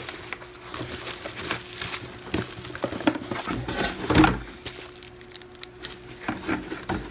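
Bubble wrap, a plastic bag and cardboard packaging rustling and crinkling as hands rummage through a camera box, with a louder cardboard bump about four seconds in.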